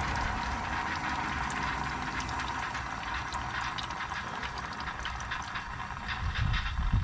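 Cleaner flushing through a transmission's cooler lines: a steady hiss with liquid spluttering and dripping out, slowly weakening.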